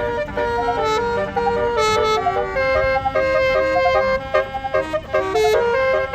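Tour bus's Basuri telolet horn playing a fast melody of short stepped notes, several tones sounding together, without a break.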